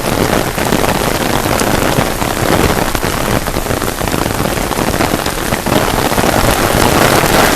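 Heavy rain pouring down in a steady, dense hiss of drops.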